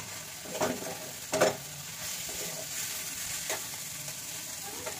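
Onion-and-spice mixture with mashed potato sizzling in a frying pan as it is stirred and broken up with a metal utensil. A steady hiss runs under a few knocks and scrapes of the utensil against the pan, the loudest about a second and a half in.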